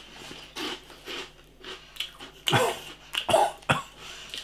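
A man giving a series of short coughs, the loudest from about halfway through, as the chilli spice of a hot jalapeno crisp catches his throat.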